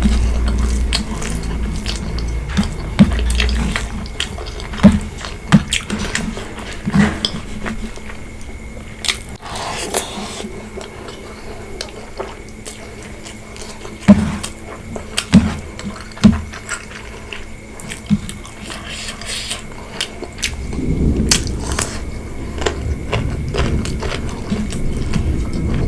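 Close-up eating sounds: chewing pork curry and rice, with sharp mouth and utensil clicks scattered through. A low rumble sits under it at the start and again from about 21 seconds in.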